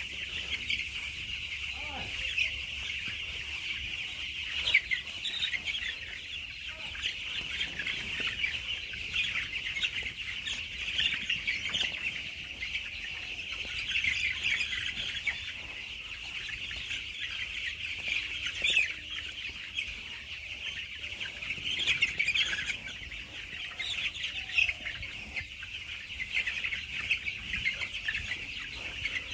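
A large flock of chickens calling without a break: a dense chorus of high-pitched calls, with louder single calls standing out every few seconds.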